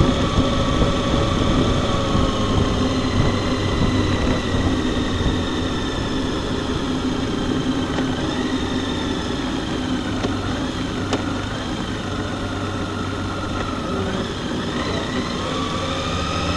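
Honda Gold Wing touring motorcycle cruising at a steady speed: the engine runs under a constant rumble of road and wind, its pitch drifting gently up and down.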